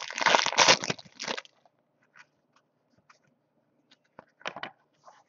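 Foil wrapper of a baseball card pack crinkling and tearing as it is opened, for about the first second and a half. After that come a few light clicks and rustles as the cards are handled.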